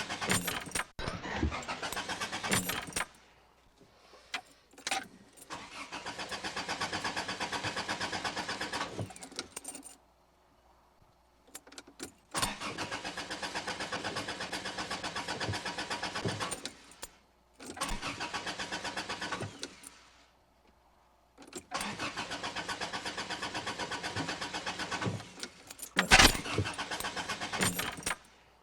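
Car engine cranking on the starter without catching, in about five separate attempts of a few seconds each with short pauses between: a car that won't start. A few sharp loud clicks come near the end.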